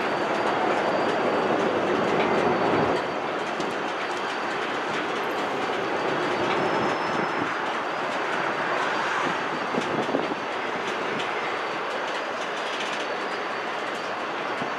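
Loaded Norfolk Southern coal hopper cars rolling slowly: a steady rumble and rattle of wheels on rail, with a faint thin squeal held above it.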